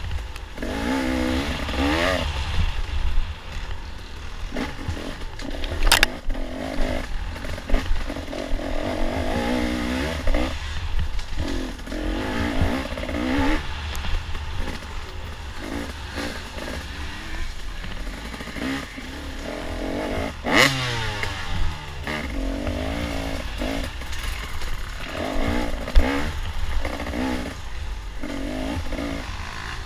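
Off-road racing dirt bike engine revving up and down again and again as the rider throttles on and off, over a steady rumble and clatter of the bike on rough ground. Two sharp knocks stand out, about six seconds in and about two-thirds of the way through, the second followed by the engine falling away in pitch.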